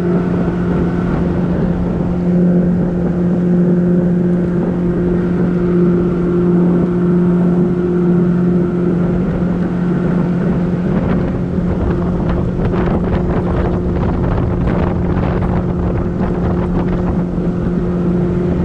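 Boat motor running steadily at speed, with wind noise on the microphone that turns gusty about halfway through.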